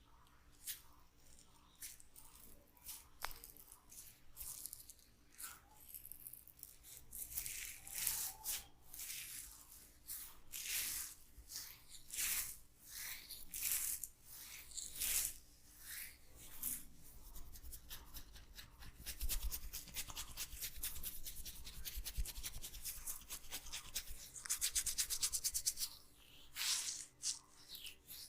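Hands rubbing oiled hair and scalp close to the microphone. Separate swishing strokes come about once a second at first, then about halfway through they change to a fast run of many short strokes a second, and two slower strokes follow near the end.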